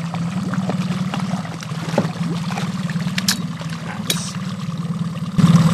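Boat engine running steadily at trolling speed, with water splashing and a few sharp clicks; the hum abruptly gets louder near the end.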